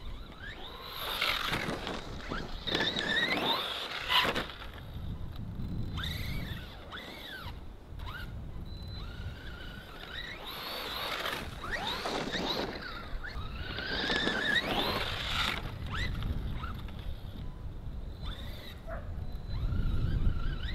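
Radio-controlled monster truck's motor revving in about five separate bursts, each a whine rising and falling in pitch, as the wheels spin in snow: the truck is stuck on the snow pile.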